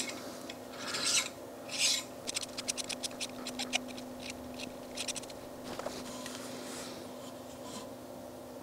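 Threaded parts of a refractor telescope's lens cell being screwed together by hand: two rasping scrapes, then a quick run of small clicks from the threads for a couple of seconds, fading to faint rubbing.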